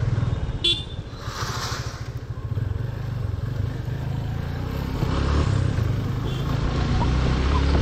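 Motorcycle engine running at low road speed on a rough dirt road, getting a little louder over the last few seconds. A short high-pitched chirp comes about a second in.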